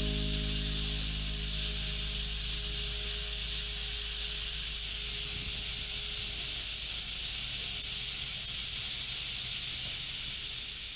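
Monson Railroad No. 3, a two-foot gauge Forney tank steam locomotive, standing and venting steam from around its cylinders with a steady hiss. The last notes of music fade out in the first second.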